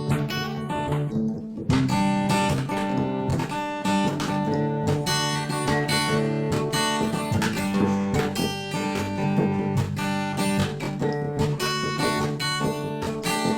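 Background music: acoustic guitar strumming and plucking at a steady beat.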